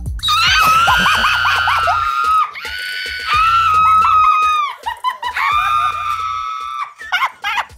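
A woman screaming in excited surprise: three long, high-pitched screams, then shorter excited shrieks near the end.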